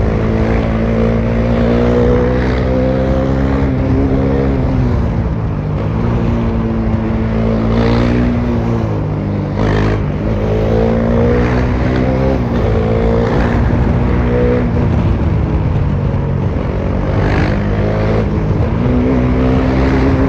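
Bajaj Dominar 400's single-cylinder engine, straight-piped with no muffler, under way at highway speed. The engine note climbs and drops several times as the throttle and gears change, dipping about four times.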